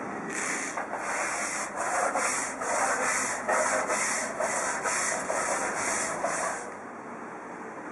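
Stiff deck brush scrubbing a floor in quick back-and-forth strokes, about three a second, stopping near the end.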